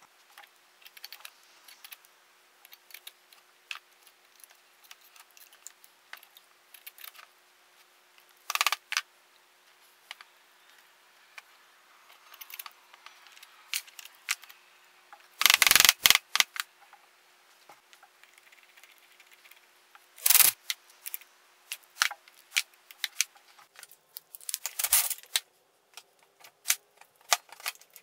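Metal tools and small-engine parts clicking and clinking as a flywheel puller is fitted to the engine's finned flywheel, with a few louder clanks about 9, 16 and 20 seconds in.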